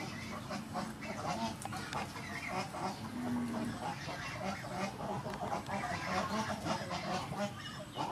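Domestic fowl calling in short, irregular notes, with a brief held call about three seconds in.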